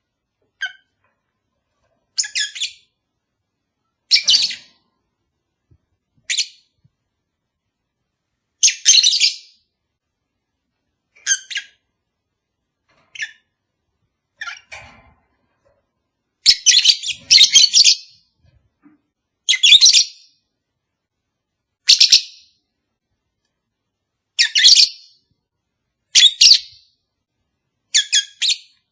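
Lovebirds calling in short, sharp, high-pitched chirps that come about every two seconds, some in quick runs of two or three, with silence between the calls.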